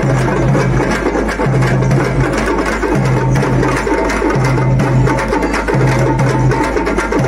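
An ensemble of parai frame drums beaten with sticks in a fast, dense rhythm. A low note pulses on and off about every second and a half beneath the drumming.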